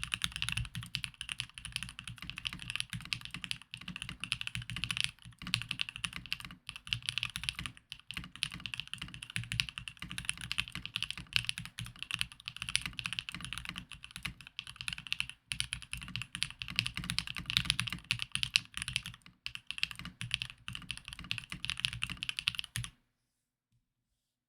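Mode65 mechanical keyboard with lubed Alpaca linear switches being typed on rapidly and continuously, a dense run of keystroke clacks. The typing stops about a second and a half before the end.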